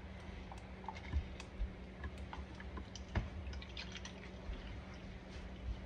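Light scattered clicks and taps of a plastic water bottle and cup being handled, with one sharper knock about three seconds in, over a faint steady hum.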